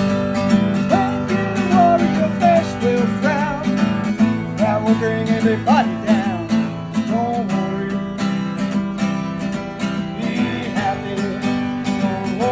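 Background music: acoustic guitar strumming at a steady rhythm, with a singing voice weaving over it.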